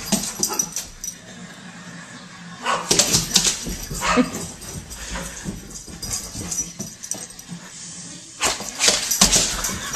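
Doberman pinscher barking in a few short outbursts, with quieter gaps between.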